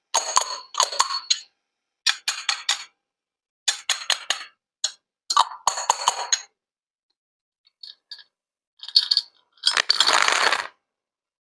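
Small hard objects clinking and clattering together in short bursts of sharp taps with a light ring. A longer rattling burst comes near the end.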